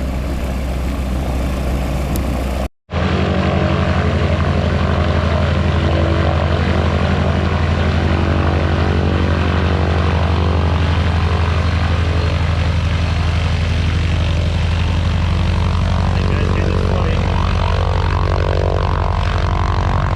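B-29 Superfortress 'Fifi' radial piston engines running steadily on the ground, a loud, deep, even drone. The sound cuts out completely for an instant about three seconds in, then carries on unchanged.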